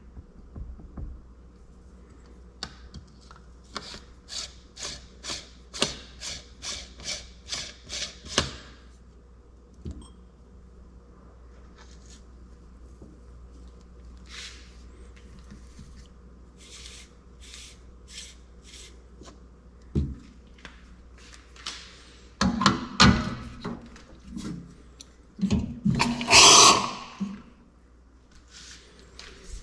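Espresso-prep handling noise with a portafilter and tools. First comes a run of about a dozen light, evenly spaced taps, roughly two a second. Scattered knocks follow, then a louder burst of clattering near the end.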